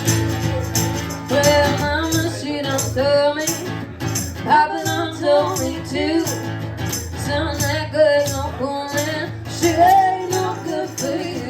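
A band playing an upbeat rock-and-roll song, with lead vocals over guitar, bass and a steady beat.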